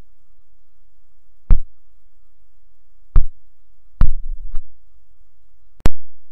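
Four loud, sharp knocks over a low steady rumble, about one and a half, three, four and six seconds in, the third followed closely by a smaller one.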